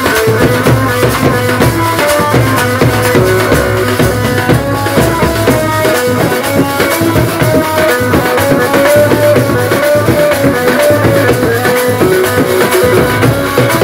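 Loud Indian band-party music: large bass drums and stick-played side drums beating a fast, steady rhythm, with hand cymbals clashing, under a melody of short, quick notes.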